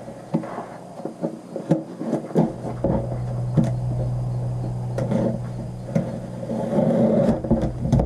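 A knife cutting the packing tape on a cardboard box, with repeated taps, scrapes and clicks of the blade and cardboard, then rustling as the box flaps are pulled open near the end. A steady low hum sets in about two and a half seconds in.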